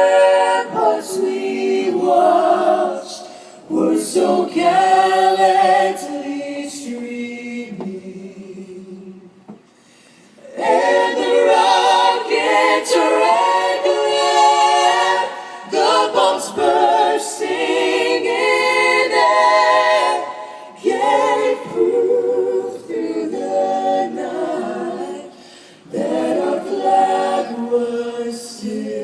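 Unaccompanied voices singing in harmony, a cappella, with a short break about nine seconds in before the singing resumes.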